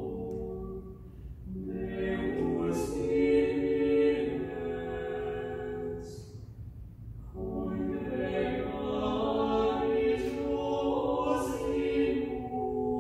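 Small choir of four voices singing unaccompanied, in two sustained phrases with a short breath pause about six seconds in.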